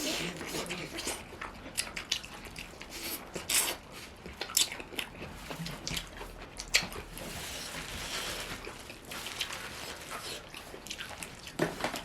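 Close-miked eating sounds: chewing and wet mouth clicks and smacks, with scattered sharp clicks.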